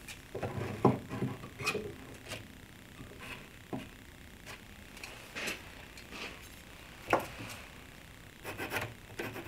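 Scattered light taps and clicks of a small square and pencil being set against a plywood cabinet's face frame while measurements are marked, with one sharper knock about seven seconds in.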